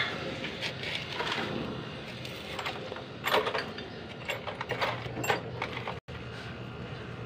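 Metal hand tools clicking and clinking against engine parts while the timing chain guide is fitted and bolted on: a few scattered sharp clicks and clatters, bunched together from about three to five seconds in, over a faint steady hum.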